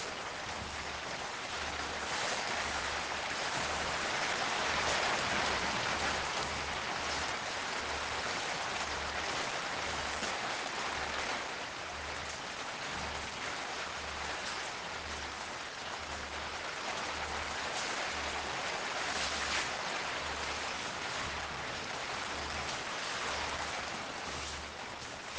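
Steady heavy rain falling, a dense even hiss of drops.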